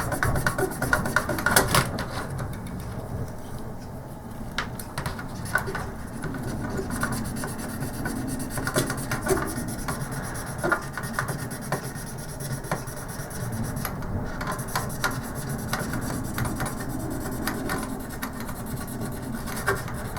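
Repeated scrubbing and rubbing on a circuit board's dirty edge-connector contacts, a continuous scratchy rasp with small clicks, as the dirt is cleaned off.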